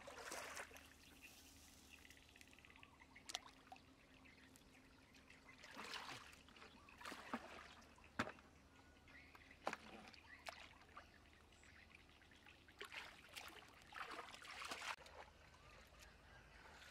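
Faint splashing and sloshing of shallow muddy water in short, scattered bursts as a man wades and handles a plastic bucket, with a few sharp knocks.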